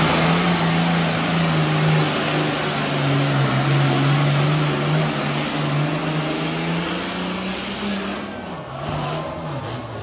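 Diesel pulling tractor's engine running flat out under load as it drags a weight-transfer sled, one steady high drone that slowly fades as the tractor moves down the track. About eight seconds in, the engine note drops and wobbles as the pull winds down.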